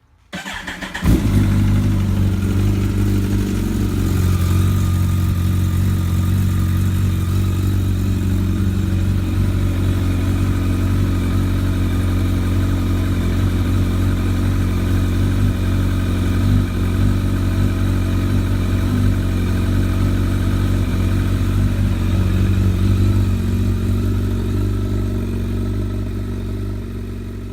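Kawasaki ZX-14R's inline-four engine cranked on the starter, catching about a second in, then idling steadily on its first start after an oil change. It fades near the end.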